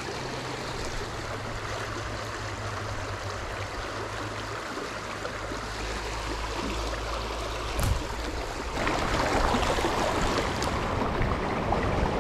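River water rushing steadily over a riffle, with a single knock about eight seconds in; about a second later the water sound grows louder.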